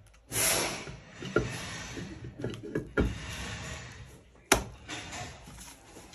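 BMW N47 aluminium cylinder head being handled and set down onto the engine block: a short scraping rustle, then several light knocks and clunks of metal on metal, the sharpest about four and a half seconds in.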